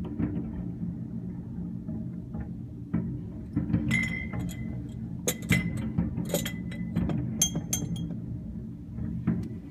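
Glassware clinking: a quick run of sharp chinks with brief ringing tones, bunched in the middle of the stretch. Low background music plays under it.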